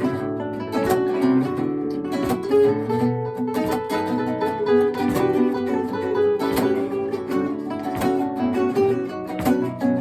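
Trio of acoustic Spanish guitars playing together: plucked melody notes over chords, with frequent sharp strummed accents.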